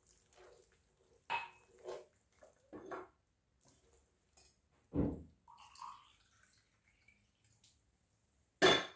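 Hands squeezing and kneading a wet mixture of ground sesame and almonds with water in a glazed clay bowl: scattered soft wet squelches, irregularly spaced, with a louder sound near the end.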